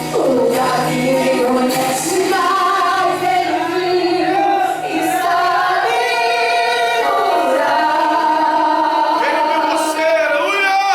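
Worship singing: voices singing a slow hymn together with musical accompaniment, the singers holding long notes.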